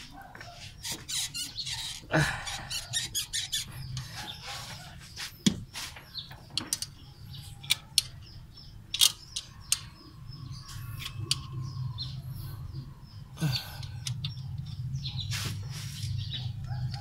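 Sharp metallic clicks and scrapes of pliers gripping and working a stiff old valve seal off a valve stem among the valve springs of a Toyota 5K cylinder head. Short high chirps come and go, over a low steady hum that gets stronger near the end.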